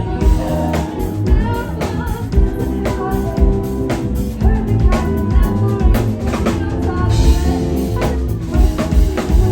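Live band music with the drum kit to the fore: a steady beat of kick and snare hits over bass and sustained chords.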